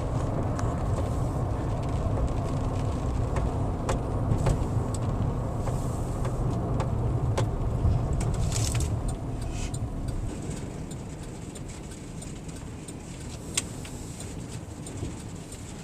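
Road noise inside a moving car: a steady low rumble that grows quieter after about ten seconds, with a few light clicks.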